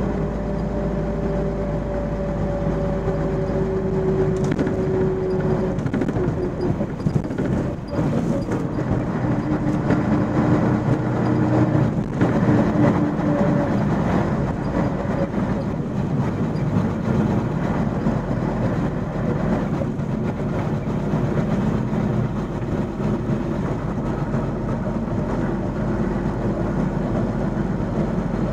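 MAN 16.370 HOCL coach on the move, heard from inside the passenger cabin: a steady mix of engine and road noise. An engine whine falls slightly in pitch over the first few seconds. The sound dips briefly around eight seconds in, then a whine rises and the running grows louder around twelve seconds in.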